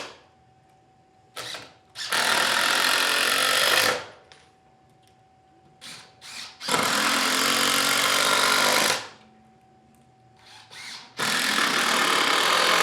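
Cordless drill/driver driving screws into wood. There are three long runs of about two seconds each, with short trigger blips and brief pauses between them as each new screw is started.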